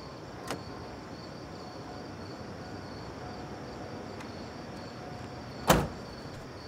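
Crickets chirping steadily in the background; near the end a single loud sharp slam, a van door being shut.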